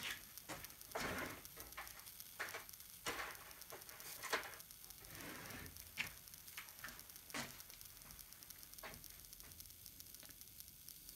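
Faint handling noise at a workbench: scattered light clicks, knocks and rustles of hands moving small parts and tools, over a faint steady hiss.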